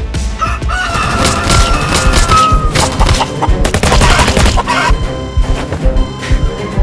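A long drawn-out high call, held steady and falling slightly at its end, over rapid clattering. Background music with steady tones comes in about five seconds in.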